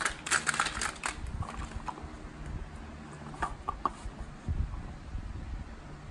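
Plastic toys clattering and knocking together in a plastic basket as hands rummage through it and lift one out, with a quick flurry of clicks in the first second and a few scattered knocks later.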